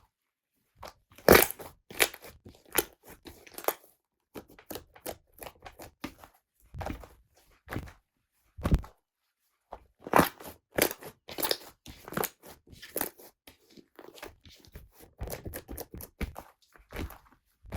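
Slime being handled and pressed by hand, giving irregular runs of sharp crackles and pops separated by short quiet gaps.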